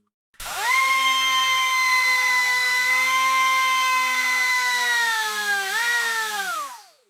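Electric anchor winch motor starting up with a quick rise in pitch, then running with a steady whine. Near the end the pitch sags, lifts briefly, then falls as the motor winds down and stops.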